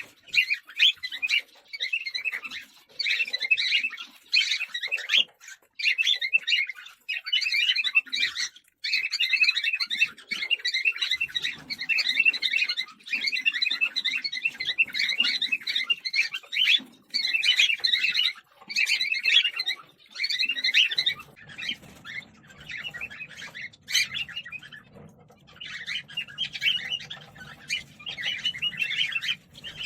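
Cockatiels chirping in rapid, raspy bouts of a second or two, repeated with short pauses. A faint low hum joins about 21 seconds in.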